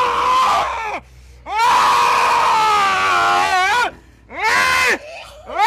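A woman screaming and wailing in long, loud, high cries, one after another; the longest is held for about two seconds and quavers at its end. The cries come from a woman in a possession trance that the exorcists treat as a dog spirit.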